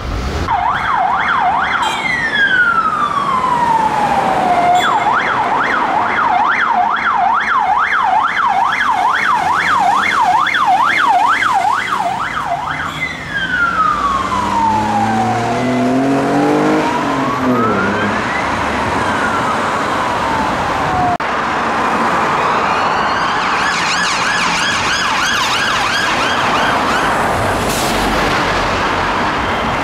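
Police vehicle sirens switching between a fast yelp and slow rising-and-falling wail sweeps. Midway an engine revs up under the siren. Near the end a faster, warbling siren tone takes over, suggesting a second vehicle following.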